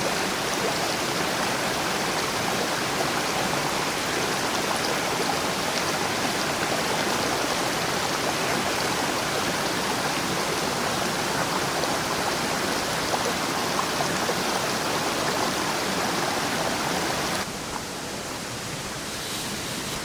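Steady rush of flowing water, like a stream running over rocks. It cuts off abruptly about seventeen seconds in, leaving a quieter hiss.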